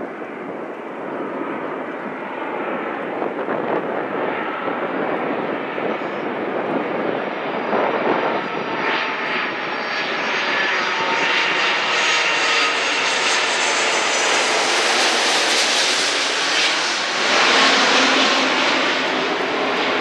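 Jet engines of an Airbus A330 twin-engine airliner on final approach with its landing gear down, passing low overhead. A steady rush grows louder and brighter as the aircraft closes in, loudest near the end, with a thin engine whine on top.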